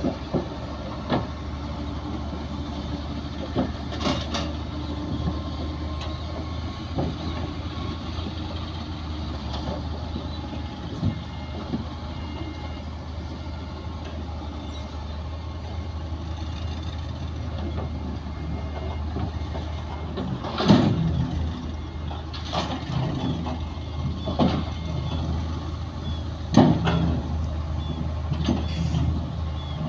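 Bulldozer's diesel engine running steadily at work, with sharp metallic clanks from the tracks and blade every so often, coming more often in the last third.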